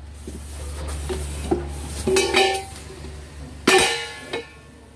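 Plucked-string music playing over a steady low hum, with a sharp clatter a little before the end.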